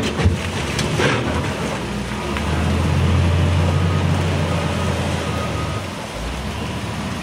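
Wheel loader's diesel engine running under work, getting louder in the middle and easing off about six seconds in, with a couple of sharp knocks in the first second.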